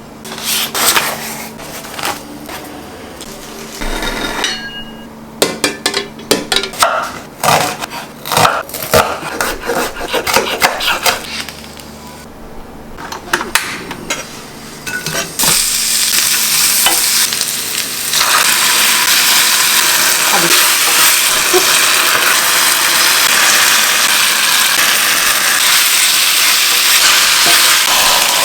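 Irregular clatter and knocks of utensils and cookware, then, about halfway through, gyudon ingredients start sizzling steadily in a hot pan, growing louder a few seconds later and continuing to the end.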